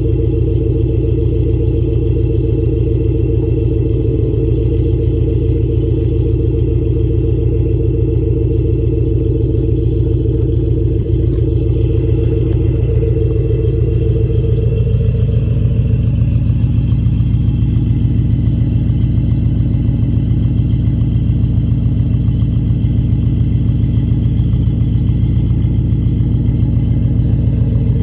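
Car engine idling steadily with an even, pulsing exhaust note; about halfway through, the idle note shifts a little lower and then holds.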